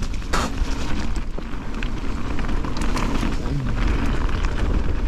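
Mountain bike rolling fast down a dirt and gravel trail: wind buffeting the microphone as a low rumble, tyres running over dirt and loose stones, and many short clicks and rattles from the bike.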